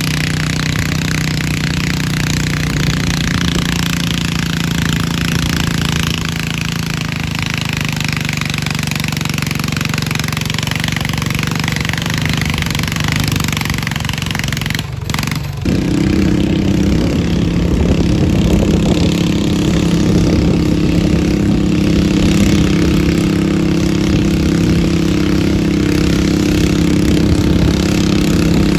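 Garden pulling tractor engines running at a steady speed. There is a short break about halfway through, after which a different engine runs louder and steadier.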